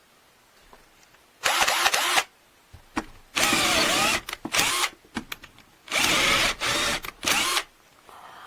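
Cordless hammer drill's motor run in five short trigger bursts of up to about a second each, its pitch dipping and recovering within a burst.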